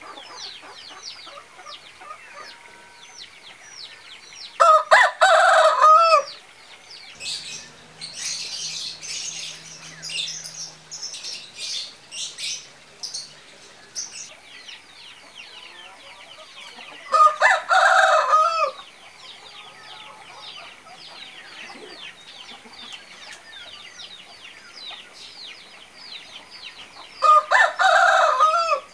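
Rooster crowing three times, each crow about a second and a half and spaced roughly ten seconds apart, over a constant bed of high, fast chirping. Between the first and second crows comes a stretch of rough, scratchy noise.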